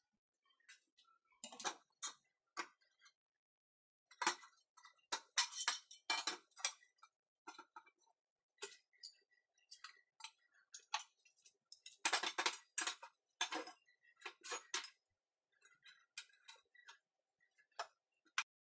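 Welded square-tube steel frames handled on a steel workbench. Irregular metallic clinks, knocks and short scrapes come in clusters about a second and a half in, from about four to seven seconds, and from about twelve to fifteen seconds.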